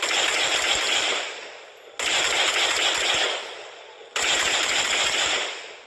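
Automatic rifle fire in repeated bursts: each burst starts suddenly, runs for about a second and a half, then dies away, with a new burst about every two seconds.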